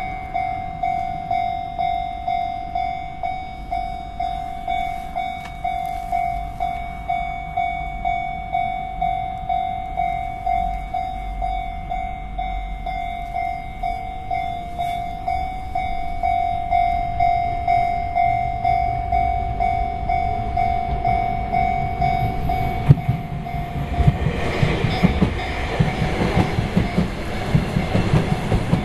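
Japanese railway level-crossing warning bell ringing in a steady repeating pattern, about one and a half strokes a second. From about 23 seconds in, a Sotetsu Line train passes over the crossing, its wheels clattering over the rail joints and drowning out the bell.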